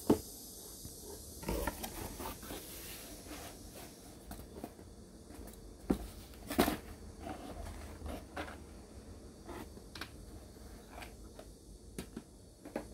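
Handling of a plastic model kit: the cardboard box and grey styrene parts being shifted and set down, giving scattered light clicks and knocks, with a short rustle about a second and a half in.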